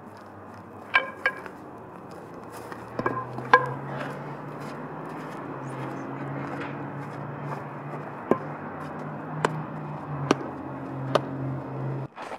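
A wooden baseball bat cracking against balls in batting practice: scattered sharp cracks, several in the first few seconds and four more about a second apart near the end, over a low steady hum.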